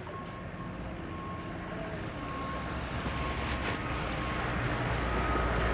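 Boat engine rumble, a low steady drone growing gradually louder as a boat comes in toward the ramp.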